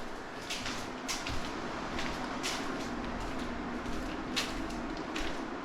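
Footsteps scuffing on a bare, not yet floored subfloor, irregular steps about every half second to second, over a steady background hum.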